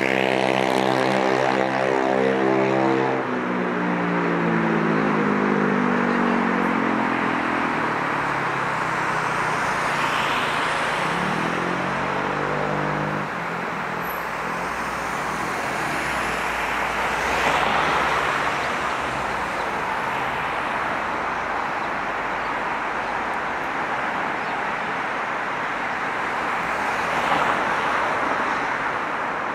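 Street traffic: an engine passes close by, its note falling slowly in pitch over the first several seconds, then a steady rush of road noise with vehicles swelling past three times.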